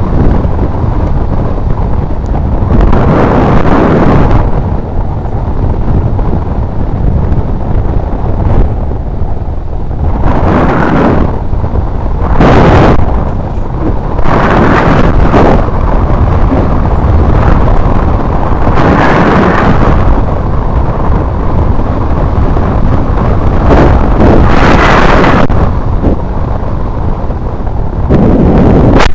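Heavy wind buffeting the camera microphone during a fast ride on a mountain bike, a loud steady rumble that swells into louder gusts every few seconds.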